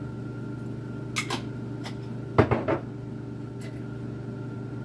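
Kitchen handling noises while seasoning food: a few light knocks and clicks of containers and utensils. The loudest is a quick cluster of knocks about two and a half seconds in. A steady low hum runs underneath.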